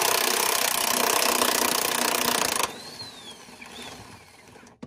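Power impact wrench hammering steadily as it spins off the upper rear shock-absorber mounting bolt, then cutting off suddenly about two and a half seconds in.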